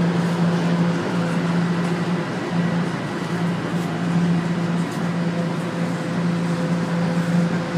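Toronto Rocket subway train heard from inside the car as it slows into a station: a steady low hum over the noise of the train running on the track.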